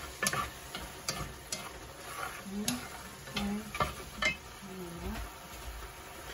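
Wooden chopsticks and a wooden spatula stirring a watery stir-fry of squash and glass noodles in a pan, with a scattering of sharp clicks against the pan over a faint sizzle.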